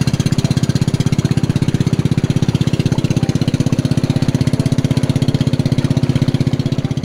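Small boat engine running steadily at constant throttle under way, a fast even putter of firing pulses.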